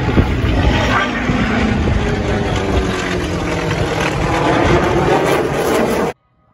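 Loud roar of a military jet aircraft in flight, a dense rushing sound that cuts off abruptly about six seconds in.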